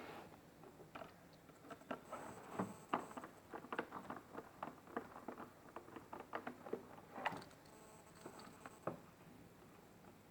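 Hands handling plastic car interior trim during dashboard disassembly: a run of faint, irregular light clicks and taps.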